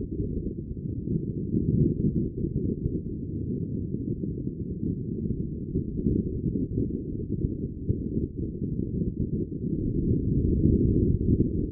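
Wind buffeting the microphone aboard a racing sailboat: a steady, muffled low rumble that swells and eases, strongest about two seconds in and again near the end.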